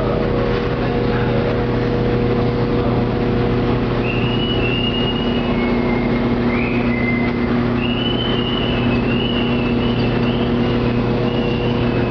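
Semi-automatic water-jug washing machine running with a steady motor hum. From about four seconds in, high wavering squeals come and go over the hum.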